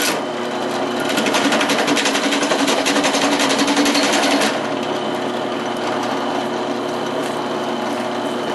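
Drill press with a chamfering bit that isn't exactly sharp cutting into a half-inch steel plate, with a rapid even chatter. After about four and a half seconds the cutting stops and the press runs on steadily.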